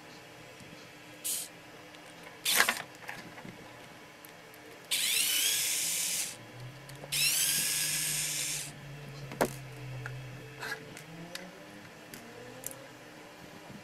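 Black & Decker cordless screwdriver running in two spells of a second or so each, about five and seven seconds in, undoing a screw on a humidifier's transducer mounting plate. A few sharp clicks from handling the parts come around it, the loudest about two and a half seconds in.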